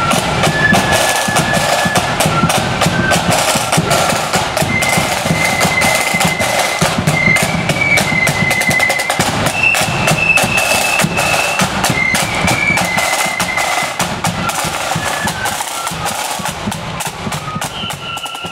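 Marching flute band playing a tune: flutes carry a single-line melody over rapid snare drum rolls and beats, with bass drum and cymbals. It grows somewhat quieter near the end.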